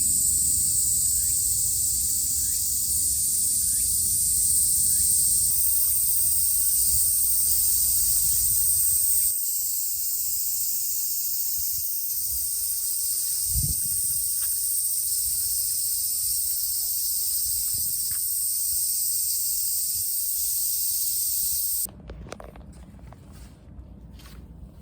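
Steady, high-pitched shrill drone of insects, with low wind rumble on the microphone for the first several seconds. A few seconds before the end it cuts abruptly to a much quieter room.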